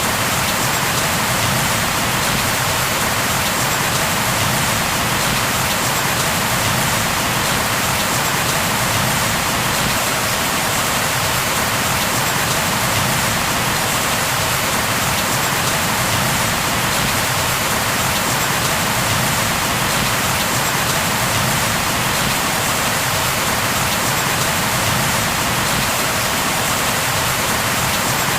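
Steady rain falling, an even hiss of drops on a surface with no thunder or other events.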